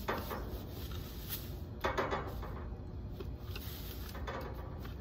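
Rummaging through trash inside a metal dumpster: debris scraped and shifted with a reacher-grabber tool, in two short bursts of scraping and rustling, one at the start and a louder one about two seconds in, with a few faint knocks between, over a steady low background rumble.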